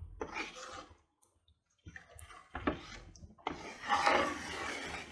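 A black ladle stirring and scraping thin curry gravy in a non-stick pan, with a few sharp clicks of the ladle against the pan. The sound cuts out for about a second near the start, then the stirring resumes.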